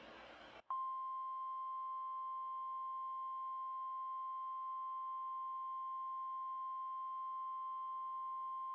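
NOAA Weather Radio 1050 Hz warning alarm tone from a Midland WR120 weather radio's speaker: one steady, unbroken tone that starts about a second in after a moment of faint hiss. It is the attention signal ahead of a new warning broadcast.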